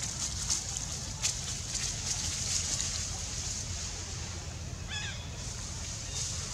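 Outdoor forest ambience: a steady hiss with a low rumble and a few light rustling clicks, and one short, high chirping call about five seconds in.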